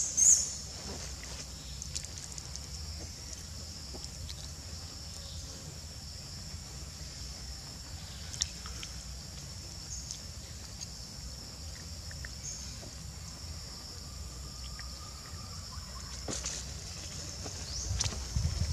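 Outdoor forest ambience: a steady high-pitched insect drone over a low wind or handling rumble, with a few faint clicks. A brief high squeak comes right at the start, and the rumble swells near the end.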